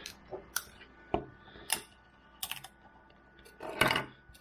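A freshly finished 3D print being pried off the printer's build plate: irregular sharp plastic clicks and snaps, with the loudest cluster near the end.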